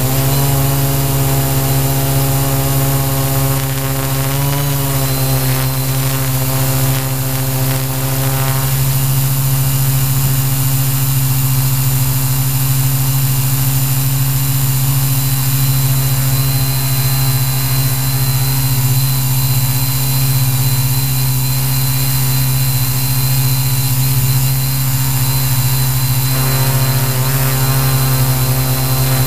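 Q800 multirotor drone's electric motors and propellers humming steadily, heard close up through its onboard camera, while the drone holds its position. The pitch wavers briefly near the start, about four seconds in, and near the end as the motor speeds are adjusted.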